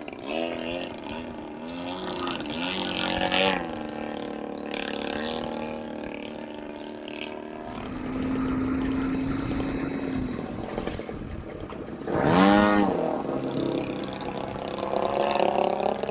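Radio-controlled aerobatic model planes flying overhead, their propeller and motor note repeatedly rising and falling in pitch with the throttle through the manoeuvres. A steady held note runs from about the middle. A loud, quick rise-and-fall comes about three-quarters of the way through as a plane passes close.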